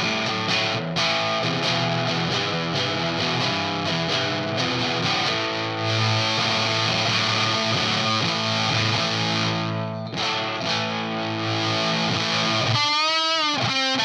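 Electric guitar played through a Sola Sound Mk IV Tone Bender fuzz pedal: saturated, fuzzy chords and riffs. Near the end a held note wavers up and down in pitch with wide vibrato.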